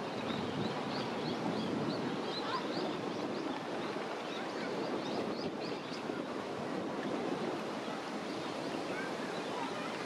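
Steady rush of moving water. Over it, a quick series of short high bird chirps, several a second, runs through the first six seconds and thins out after.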